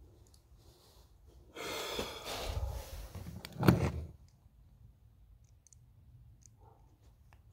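Handling noise as a small-engine carburetor is picked up off the workbench and turned over by hand: about two seconds of rustling, ending in one sharp knock.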